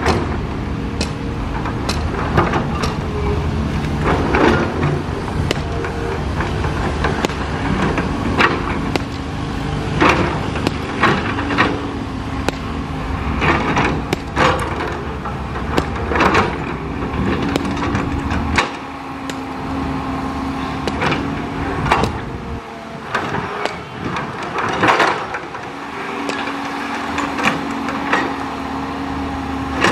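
Caterpillar 320 hydraulic excavator running under load, its diesel engine and hydraulics giving a steady drone with a whine, while the bucket scrapes and clanks through soil and debris in repeated sharp knocks.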